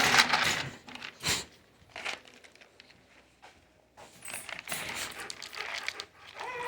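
Packaging being handled, crinkling and rustling, in two spells with a near-quiet pause between and a single click about a second in.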